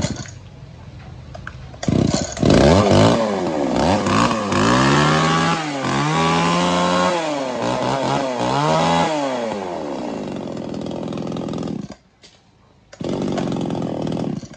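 Tanaka 33cc two-stroke chainsaw started up, catching about two seconds in and revved several times, its pitch rising and falling, then settling. It cuts out suddenly about twelve seconds in, and a second stretch of steady running follows near the end.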